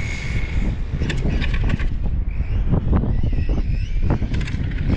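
Wind buffeting the microphone, with the faint whine of the RC rally car's electric motor rising and falling as it is driven hard across concrete on a 3S battery, and a few sharp clicks.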